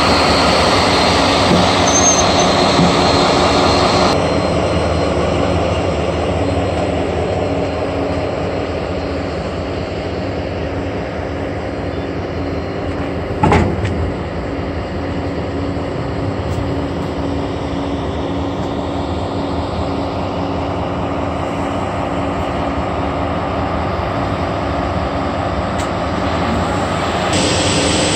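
Pesa Gama SU160 diesel locomotive running steadily at close range, a continuous engine hum. Its upper hiss drops away about four seconds in and comes back near the end, and a single sharp knock sounds about halfway through.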